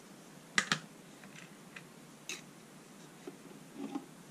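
Light clicks and taps of small tools handled on a workbench: metal tweezers set down, and the plastic handle of a hot-air soldering gun lifted from its stand near the end. The loudest is a pair of sharp clicks about half a second in.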